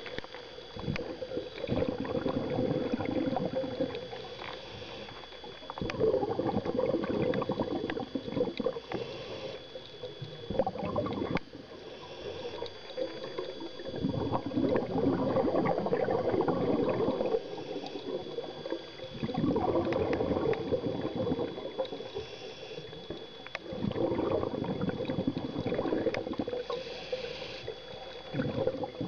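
A scuba diver breathing through a regulator underwater: a burst of exhaled bubbles every four to five seconds, with quieter gaps between. A faint steady high tone runs underneath.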